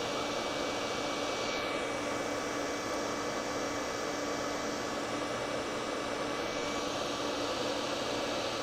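Heat gun running steadily, a fan-driven hiss with a faint high whine, blowing hot air onto a surface-mount chip to melt the solder on its legs so it can be lifted off.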